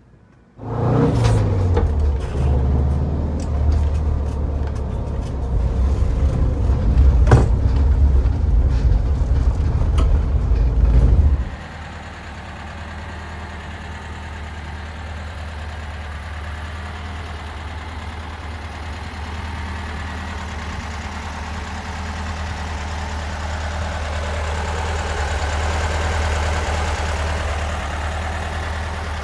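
1971 Volkswagen Bay Window bus's air-cooled flat-four engine running. For about the first eleven seconds it is loud and uneven with sharp clicks; after a sudden drop it settles into a steady, quieter idle.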